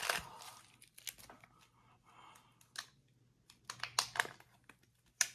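Plastic packaging being handled: scattered short crinkles and clicks, with a cluster about four seconds in and one sharp crackle near the end.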